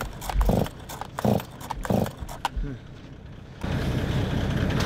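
Stihl chainsaw being pull-started: several quick rips of the recoil starter cord about two thirds of a second apart, the engine not catching, which the man takes as a sign the air filter needs cleaning. About three and a half seconds in, a steady rushing noise begins abruptly.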